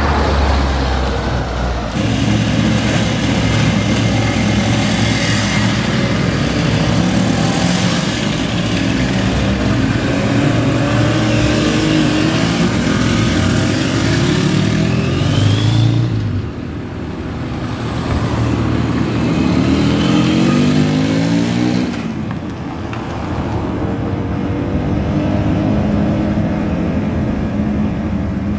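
Several motorcycles riding off and passing one after another, their engines revving and rising in pitch as they accelerate. The sound changes abruptly a few times.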